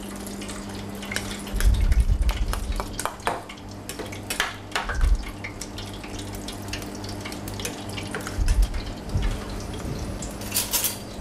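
A metal spoon stirring and clinking in a small stainless steel bowl, coating crispy deep-fried prawns in a cold sauce, with scattered light clinks and a few dull knocks. A low steady hum runs underneath.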